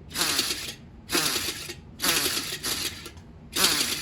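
World War II mechanical friction-wheel siren with its rotor spun too slowly to wail, making a whooshing whir in short bursts, about one a second. It is a low-speed version of a sound that would be much louder at full road speed.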